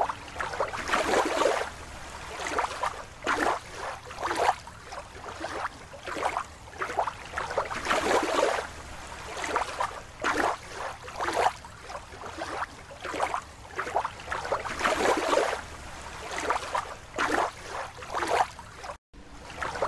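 Water sloshing and splashing in a small plastic tub as a rubber toy dolphin is swished through it by hand, in uneven splashes one or two a second.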